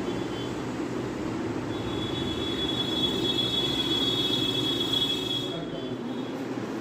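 A steady high-pitched tone sounds from about two seconds in until past five seconds, over a steady low background rumble.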